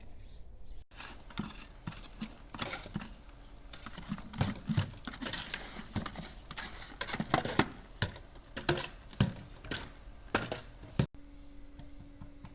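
Irregular taps, clinks and scrapes of hand tools at construction work, with no steady rhythm; the sound breaks off abruptly twice.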